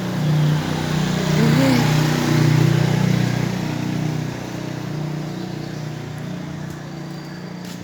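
A motor vehicle passing close by: its engine hum and road noise build up, peak about two to three seconds in, then fade away.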